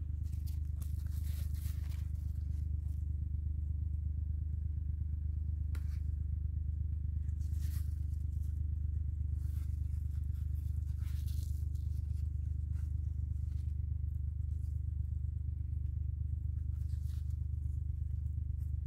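A steady low hum under several brief rustles and tearing sounds: cucumber leaves and stems handled by hand, side shoots pinched off.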